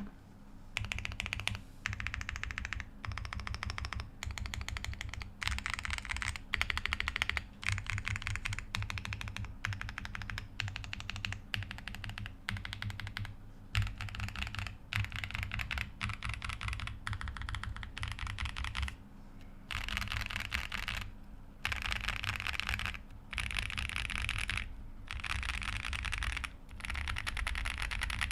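Fast typing on a GrayStudios Space80 custom mechanical keyboard with lubed Boba U4T tactile switches, FR4 plate, PE foam and GMK Shanshui keycaps: a rapid, continuous patter of keystrokes with a deep rather than loud sound, in runs of a few seconds broken by short pauses.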